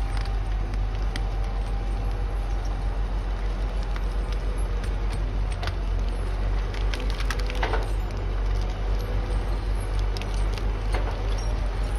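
A wheeled logging machine's diesel engine running with a low, steady drone, while wood cracks and snaps around it in sharp, scattered cracks, the loudest cluster about seven and a half seconds in.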